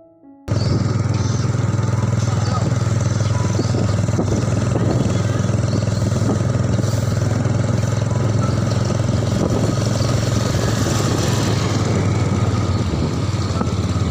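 A small engine running steadily at an even speed, starting suddenly about half a second in.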